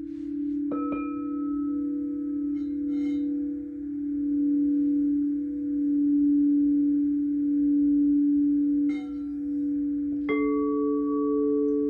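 Singing bowls: one bowl's steady low hum swells and eases throughout, while other bowls are struck several times, near the start, around three seconds and twice near the end, each strike ringing on at its own higher pitch.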